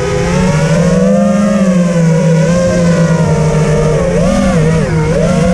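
Four 2400KV brushless motors (T-motor F40 Pro II) spinning 5-inch Dalprop props on a 5-inch FPV quadcopter, heard from a GoPro mounted on the quad: a steady buzzing whine whose pitch rises and falls with throttle, dipping and climbing again about four seconds in.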